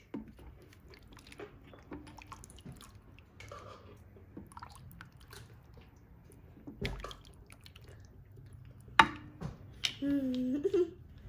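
Spoon working through broth and chicken in a slow-cooker pot: faint liquid sloshing and small clicks, with a sharp knock about nine seconds in. A short hum-like voice sounds near the end.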